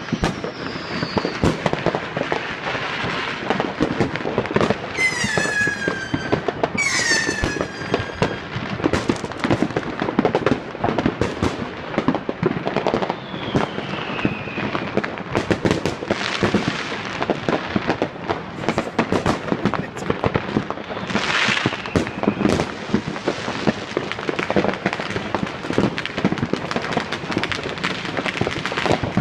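Many fireworks going off at once in a continuous barrage of bangs and crackling pops. Several falling whistles cut through it, the two loudest about five and seven seconds in.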